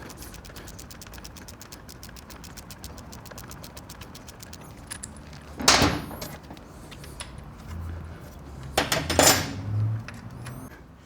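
Ratchet wrench clicking rapidly as a bolt is turned out. The clicking stops about five seconds in, followed by two louder metal clanks of tools or parts, about 6 and 9 seconds in.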